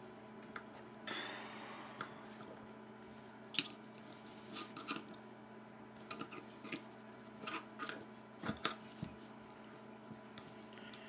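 Faint small metallic clicks and ticks of a folding knife being taken apart by hand, with a screwdriver working the handle screws out of the titanium scales. A short scraping rub comes about a second in, and several sharper clicks come in the second half.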